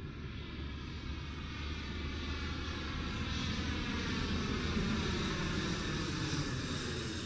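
A droning engine, growing louder over the first few seconds and then holding steady, with a low hum and a comb of high tones slowly gliding in pitch.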